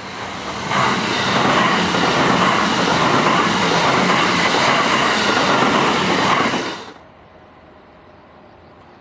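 JR West electric commuter train passing at speed: a loud rush of wheel and rail noise with a low steady hum, lasting about six seconds and cutting off sharply about seven seconds in.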